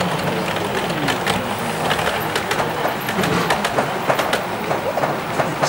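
Model railway freight train of tank wagons running past on the layout track, its small wheels making a steady run of irregular clicks over the rail joints.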